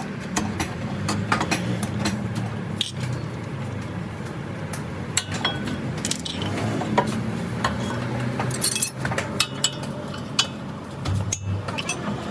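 Metal tools and car parts clinking and knocking at irregular times over a steady low hum.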